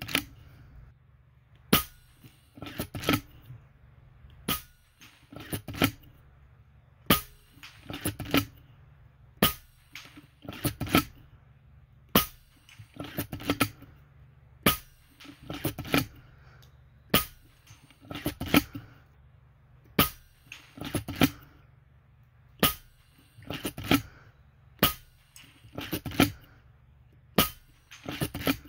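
FX Impact .25 PCP air rifle firing repeatedly, about one sharp shot every two and a half seconds, some eleven in all. A quick cluster of clicks and knocks follows a second or so after each shot.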